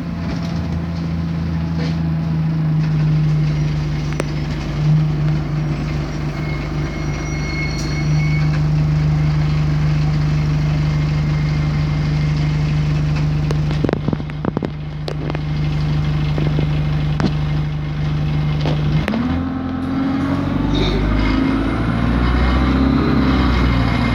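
Diesel engine of an Alexander Dennis Enviro200 single-decker bus droning steadily, heard from inside the cabin, with a few knocks about 14 seconds in. About 19 seconds in the note breaks up and a rising whine sets in as the bus accelerates.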